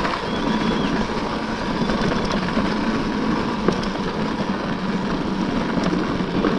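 Off-road motorcycle engine running steadily while riding, with rough wind noise on the microphone.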